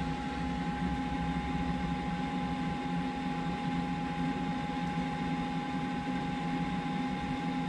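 Steady machine hum with a constant high whine from a running portable fridge's compressor and a small PC cooling fan.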